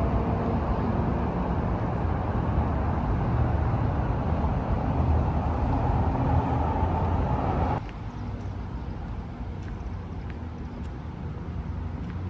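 City street traffic noise: a steady rumble of passing vehicles. About eight seconds in it drops suddenly to a quieter, duller rumble.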